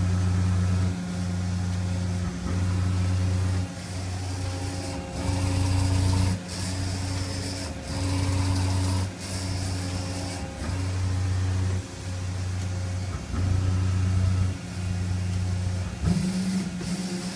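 Makino A55 horizontal machining center making a low droning hum that pulses on and off in a steady cycle, about once every second and a quarter. Near the end the pulsing stops and a higher, steadier hum takes over.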